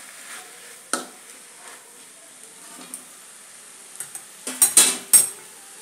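A steel spatula knocks once against a steel pan of faintly sizzling amaranth greens about a second in; near the end comes a quick run of sharp, ringing metal clinks as the spatula and steel lids are set down and handled.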